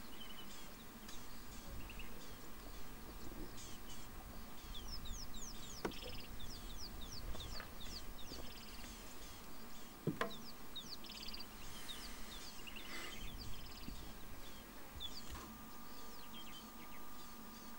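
Wild birds chirping in the bush: a quick run of short, high, falling chirps. Two sharp cracks sound about six and ten seconds in.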